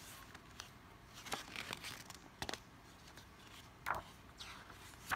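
Paper and plastic album packaging being handled: a few short rustles and light taps, the loudest a little before the four-second mark.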